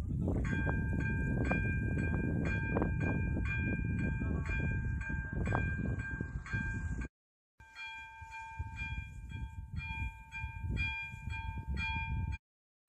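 Czech level-crossing warning bell ringing, an even repeated ding about twice a second while the red signal lights flash. A loud low rumble lies under it for the first seven seconds. The sound drops out for half a second, then another crossing's bell rings on more clearly.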